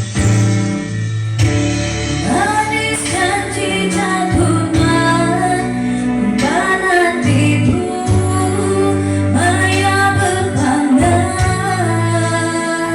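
A woman singing a song with band accompaniment, amplified for a sound check: held notes with vibrato over a steady bass line.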